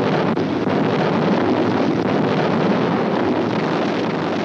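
Steady, dense rumbling roar with no separate blasts, easing a little near the end: a battle-rumble soundscape.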